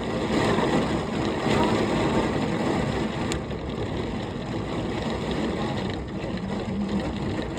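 Thunderstorm wind and heavy rain, a steady rushing noise.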